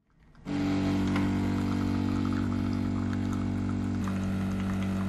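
Bosch automatic coffee machine humming steadily as it brews coffee into two cups. The hum starts about half a second in, and its tone shifts slightly near four seconds.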